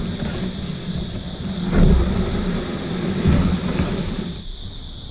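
A loud low rumbling on the microphone, with two heavier bumps about two and three seconds in, easing off near the end. Behind it runs a steady high drone of insects.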